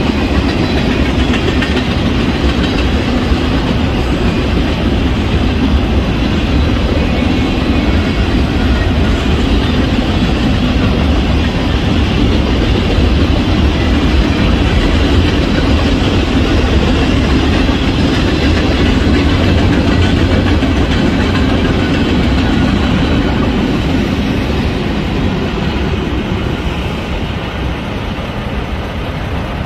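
Union Pacific freight cars rolling past at speed, a steady rumble with wheels clattering over the rail joints. It eases off over the last few seconds as the end of the train passes.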